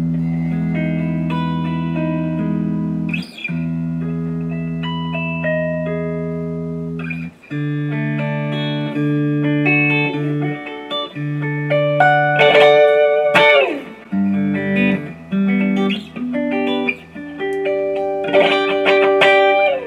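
Single-cutaway electric guitar fitted with a Floyd Rose FRX tremolo, plugged in and played as a first test of the new install: two long ringing chords, then quicker chord changes about every second with single notes picked over them.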